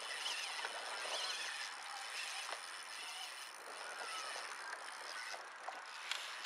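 Steady wind and water noise on open water from a fishing kayak, with a few faint scattered clicks.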